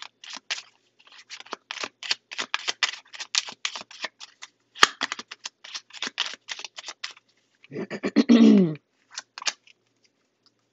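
A deck of paper tarot cards shuffled by hand, the cards slapping and rasping together in quick, uneven strokes for about seven seconds. Near the end a voice gives a short hum that falls in pitch, followed by a few last card snaps.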